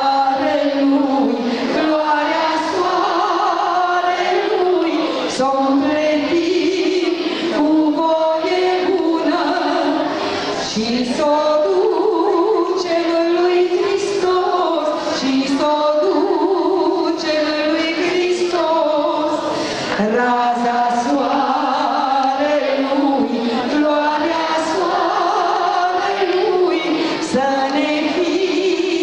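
A woman singing a traditional Romanian song solo into a handheld microphone, amplified through a PA in a hall, with long held, gliding notes.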